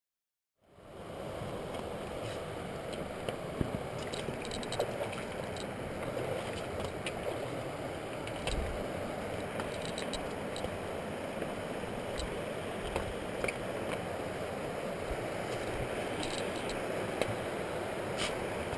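Steady rushing of river water, with scattered scrapes, rustles and footsteps as someone pushes through streamside grass and plants. It fades in about half a second in.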